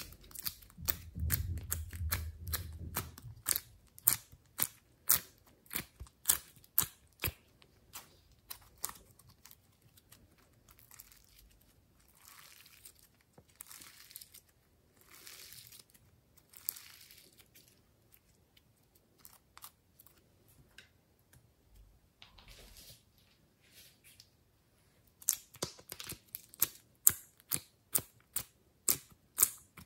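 Glossy slime being worked by hand: pulled from a plastic ice-cube tray, stretched and squeezed, giving a run of sharp clicks and pops. About halfway through come several longer noisy sounds as it is stretched, and near the end a dense run of loud clicks as a lump is squeezed.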